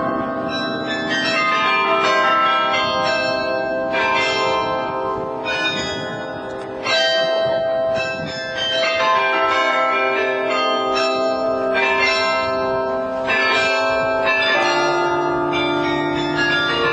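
Carillon bells in a tower playing a tune: many tuned bells struck one after another, a new note every second or so, each ringing on and overlapping the next.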